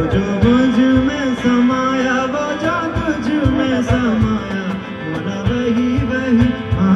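Live fusion band playing: strummed acoustic guitars and keyboard with percussion under a sustained, wavering sung melody.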